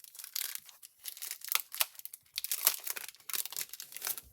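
Packaging crinkling and rustling in irregular crackles as an embossing folder is handled and taken out of its wrapping.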